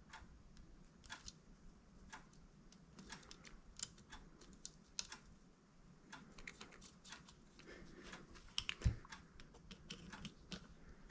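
Faint, irregular small clicks and ticks of a screwdriver working a small brass main jet into the underside of a two-stroke motorcycle carburetor, as the jet is fiddled into its seat against the emulsion tube, with one duller knock about nine seconds in.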